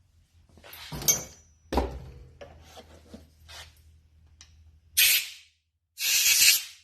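Two short blasts of compressed air hiss through a tobacco pipe, about a second apart, clearing out the crud loosened by reaming the bore. Before them come light knocks and rubbing as the pipe is handled.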